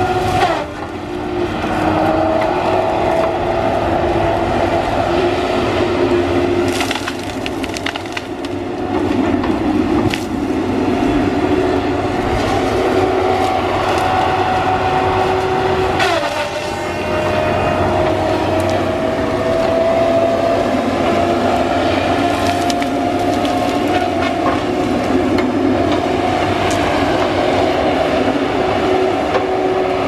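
Tigercat LX830D tracked feller buncher at work: its diesel engine and hydraulics run with a steady two-tone whine, broken now and then by cracks of trees being cut and snapped. About 16 seconds in, the whine drops sharply with a crack, then slowly climbs back up.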